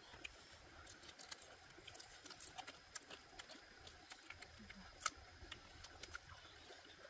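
Faint, irregular small clicks and ticks, with one sharper click about five seconds in.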